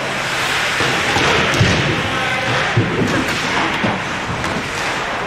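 Ice hockey play on a rink: skates scraping the ice and sticks and puck clattering, with several dull thuds against the boards.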